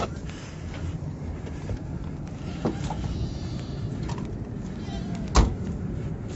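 Goats bleating faintly a couple of times over a steady low rumble, with one sharp thump about five seconds in.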